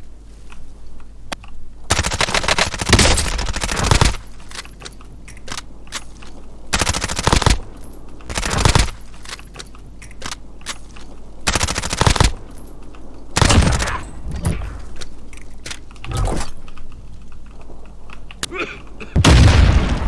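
Automatic gunfire in about six loud bursts, each a second or two long, made of rapid cracks, with quieter gaps between the bursts.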